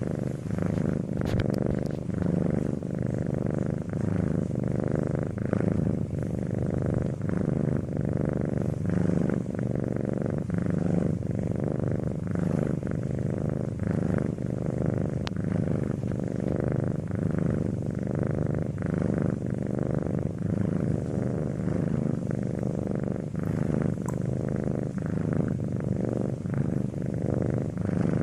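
Domestic cat purring continuously, a low rumble that pulses in an even rhythm.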